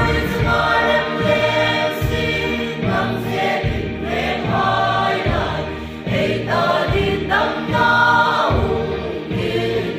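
Mixed choir of young men and women singing a hymn together, over a steady low beat about once a second.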